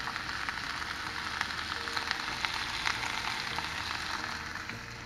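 Sliced courgette and onion sizzling in a hot frying pan: a steady hiss dotted with sharp crackles.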